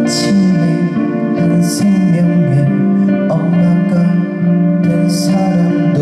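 Live band playing a slow song on acoustic guitar, electric guitar, bass and drums, with three cymbal hits: one at the start, one a little under two seconds in and one about five seconds in.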